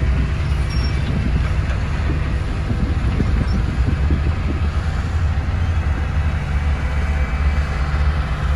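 Motor grader's diesel engine running steadily, a deep continuous drone.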